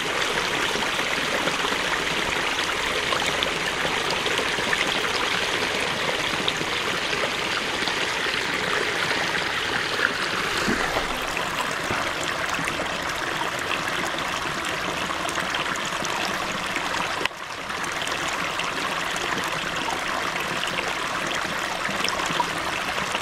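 Creek flowing over a very small waterfall: steady splashing, trickling water, with one brief dip in level about two-thirds of the way through.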